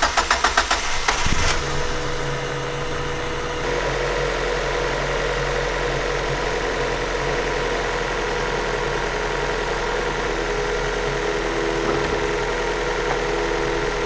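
Mazda MX5 four-cylinder engine on the last second or so of starter cranking, catching and settling into a steady idle. The ECU holds its ignition fixed at 10 degrees before top dead centre for a timing-light check, and the corrected timing now sits smack on the crank pulley marks.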